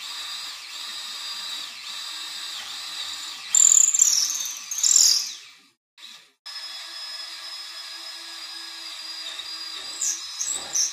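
Cordless drill running a twist bit into a wooden frame. The motor's steady whine gets much louder as the bit cuts in, between about three and a half and five and a half seconds. It stops around six seconds, runs again, and has another louder cut near the end.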